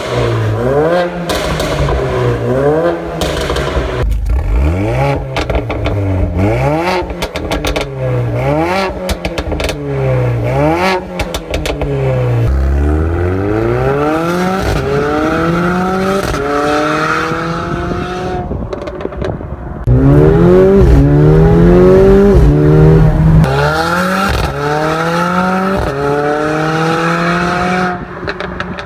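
Mercedes-AMG CLA45's turbocharged 2.0-litre four-cylinder through an Armytrix valved exhaust: quick free revs, about one a second, with crackles and pops as the revs fall. Then full-throttle accelerations up through the gears, each gear a rising pitch cut off by an upshift, the second run the loudest, fading as the car pulls away near the end.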